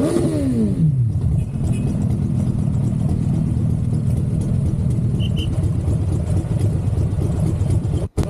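Harley-Davidson V-twin motorcycle engine coming off the throttle, its revs falling in about the first second. It then runs low and steady as the bike rolls slowly along. The sound cuts off abruptly just before the end.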